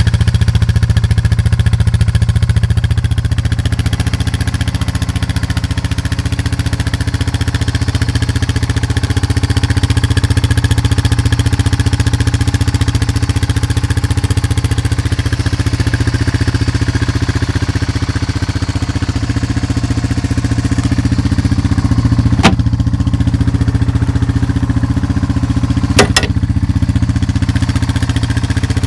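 Honda TRX300 4x4 quad's single-cylinder four-stroke engine idling steadily. Two sharp clicks come in the last third, about three and a half seconds apart.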